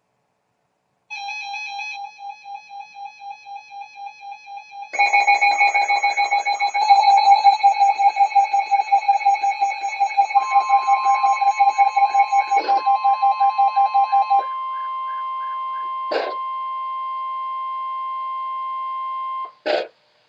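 Electronic emergency alert tones for a flash flood warning. A rapid beeping alarm of about four beeps a second starts and gets louder about five seconds in, and a steady tone joins it about ten seconds in. The beeping stops partway through, and the steady tone holds until it cuts off near the end, with a few sharp clicks.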